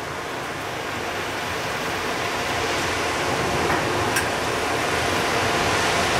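Steady rushing noise of a freight train standing at a station after braking to a stop, slowly growing a little louder: the EH200 electric locomotive's cooling blowers running at standstill.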